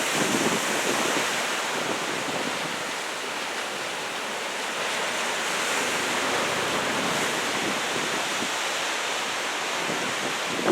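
Ocean surf stirred up by an approaching typhoon, breaking in a steady wash of noise, with wind buffeting the microphone in gusts, strongest just at the start and at the very end.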